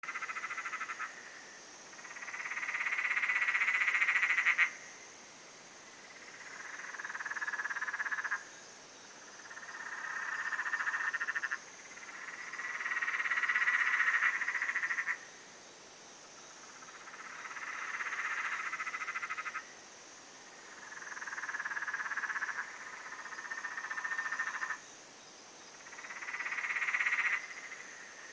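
Animal calls coming in repeated bouts every few seconds: each bout is a rapid rasping pulse train that swells over two to four seconds and then cuts off abruptly. A steady high hiss runs underneath.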